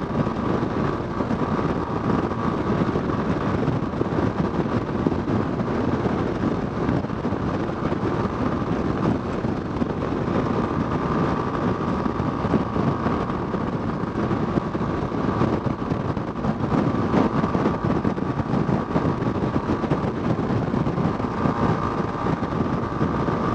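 Yamaha Fazer 250's single-cylinder engine running steadily at highway cruising speed, mixed with wind rushing past the microphone.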